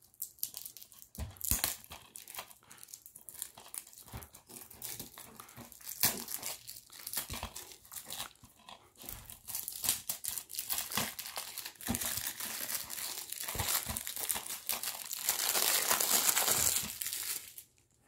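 Plastic shrink-wrap on a DVD case being picked at and torn off, crinkling and crackling in scattered bursts, then in a denser run of crinkling from about two-thirds of the way through that stops suddenly just before the end.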